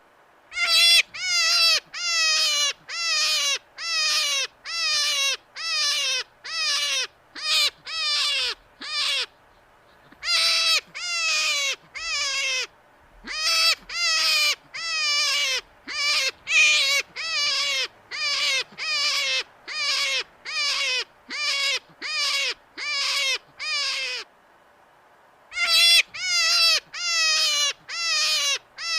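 An animal calling over and over with short, high squealing calls, about two a second, each wavering and falling in pitch. The calls come in long runs broken by two brief pauses.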